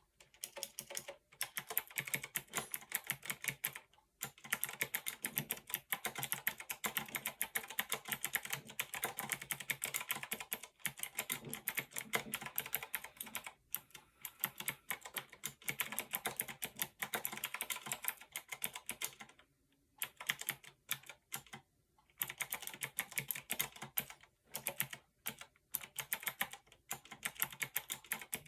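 Typing on a Fineday mechanical keyboard: quick runs of keystroke clacks with short pauses between bursts. The switches are not very clicky.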